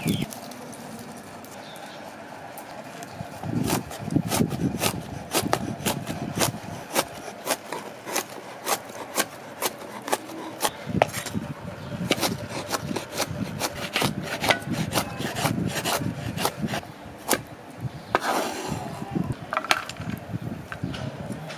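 Large kitchen knife chopping garlic cloves on a wooden cutting board: quick, uneven knocks of the blade on the wood, a couple a second, starting a few seconds in. Near the end the blade scrapes across the board, gathering up the chopped garlic.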